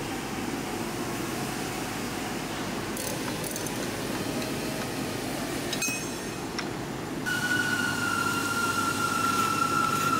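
Car-workshop sounds during a supercharger pulley and throttle body install: a few light metallic clinks, then from about seven seconds in a steady high-pitched power-tool whine lasting a few seconds that sags slightly in pitch just before it stops.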